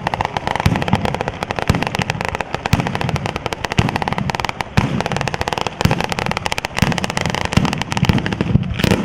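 Daytime ground firecracker battery in the San Severo style (batteria alla sanseverese) going off: a continuous rapid crackle of firecrackers, with a heavier bang about once a second.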